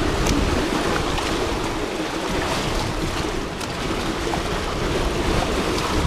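Steady, loud rush of river current flowing past the bridge pylons and around the wading angler's legs, loud enough that his voice can hardly be heard over it.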